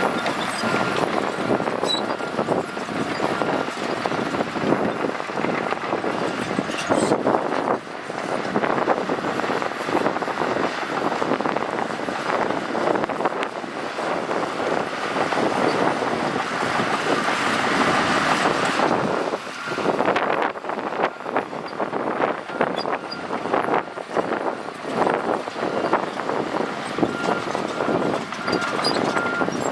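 Shantui crawler bulldozer working under load: engine running, with the steel tracks clanking and squealing throughout. A reversing alarm beeps near the start and again near the end.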